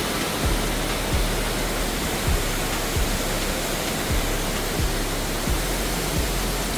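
Steady rushing noise of heavy rain and wind during a hurricane, with a low thump repeating about every two-thirds of a second.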